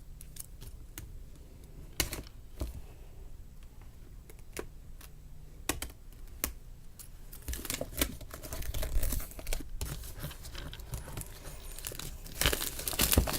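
Toy packaging being torn and opened by hand: scattered rips, crinkles and sharp clicks, busier in the second half.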